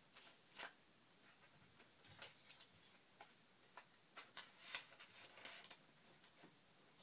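Faint, irregular light clicks and taps, about a dozen, as the parts of a MacBook Pro's screen assembly are handled and fitted together.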